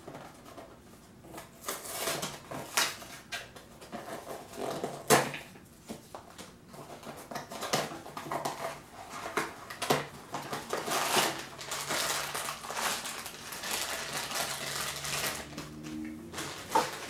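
Handling noise from a small cardboard toy box and plastic wrapping being opened: irregular crinkling, rustling and small clicks as a mini vinyl figure is pulled out and unwrapped.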